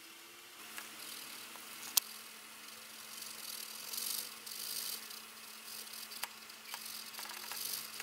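Graphite pencil scratching on paper in short shading strokes, with a few sharp clicks, the loudest about two seconds in, over a faint steady hum.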